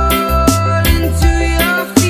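Reggae-style dance music with a deep bass line, held melody notes and a drum hit about every half second.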